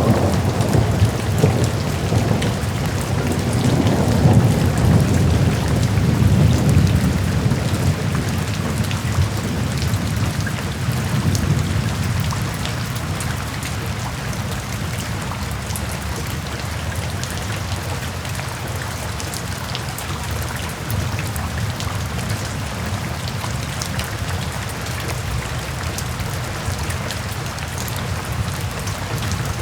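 Steady rain with scattered drop ticks, under a low rumble of thunder that fades out over about the first twelve seconds.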